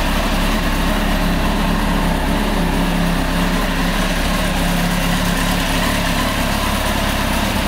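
Kawasaki ZX-10R's inline-four engine idling steadily, with no revving.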